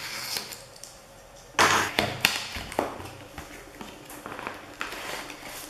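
Cardboard retail box being opened by hand: light scraping as a pen works at the sticker seal, then a sudden loud tear or knock about one and a half seconds in, followed by lighter taps and rustling of the cardboard.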